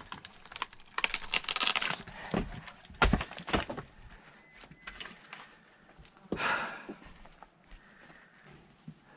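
Firewood being split: a run of crackling and splintering wood about a second in, then two sharp strikes around three seconds in, with scattered small knocks of wood afterwards.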